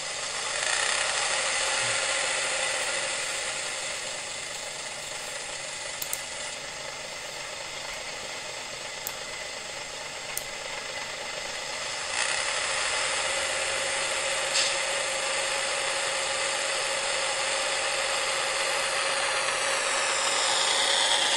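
Recorded Class 101 diesel multiple unit engine sound played by a Zimo sound decoder through the N gauge model's tiny speaker: a steady, thin engine drone with no bass. It steps up in loudness about halfway through and grows louder again near the end as the engine note changes.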